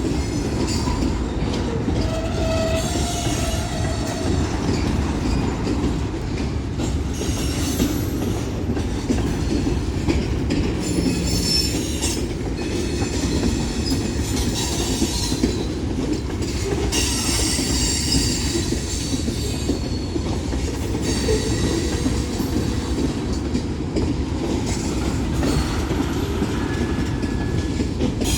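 Freight cars of a Union Pacific manifest train rolling past at steady speed: a continuous rumble of wheels on rail with clickety-clack over the rail joints. Bouts of high wheel squeal come and go every few seconds.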